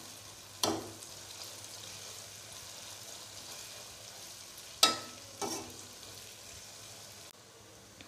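Sliced onions and ginger-garlic paste sizzling steadily in hot oil in a metal pot. A metal spoon knocks against the pot three times as the mixture is stirred, each knock ringing briefly.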